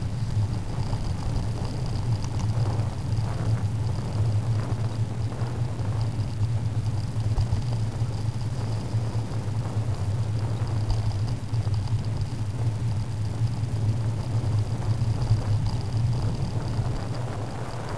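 Steady low rumble of road and wind noise picked up by a bicycle-mounted camera while riding on a town street, with car traffic in the mix.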